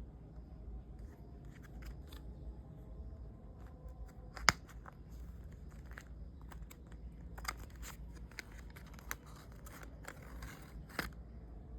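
Watch packaging being handled and opened by hand: scattered light clicks and brief rustles, with one sharp click about four and a half seconds in and a busier stretch of rustling and clicks near the end.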